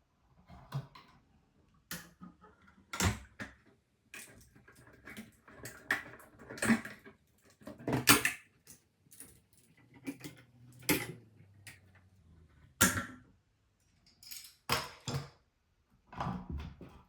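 Irregular sharp clicks, taps and light knocks of hand tools and an electrical outlet being handled while a GFCI receptacle is installed, with about a dozen louder knocks spread unevenly through.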